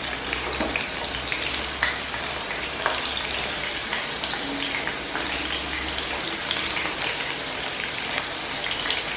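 Batter-coated boneless chicken pieces deep-frying in hot oil: a steady crackling sizzle with many small pops.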